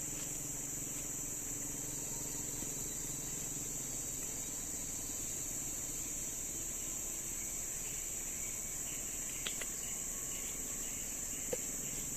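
Steady high-pitched drone of forest insects, with a few faint sharp ticks near the end.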